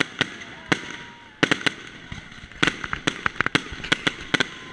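Fireworks going off overhead: a quick, irregular string of sharp cracks and pops, coming thickest in the second half.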